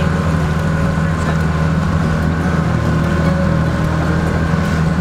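Small boat's outboard motor running steadily underway at constant speed.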